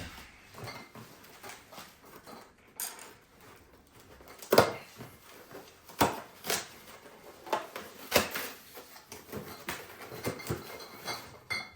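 Scattered knocks and clinks of dishes and utensils being handled on a dining table, a few sharp strikes a second or more apart, the loudest about four and a half seconds in.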